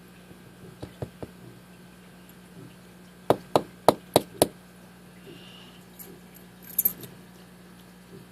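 Metal parts of a disassembled padlock being handled and tapped. A few faint clicks come first, then five sharp taps about a quarter-second apart, then a short metallic clink near the end.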